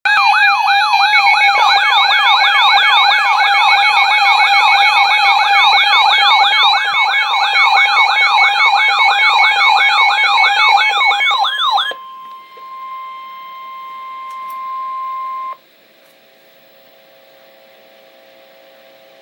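Emergency Alert System warning tones: a loud siren yelping in fast rising-and-falling sweeps, about three a second, over steady tones. The siren cuts off suddenly about twelve seconds in, leaving a single steady tone for a few seconds, then only a faint hum.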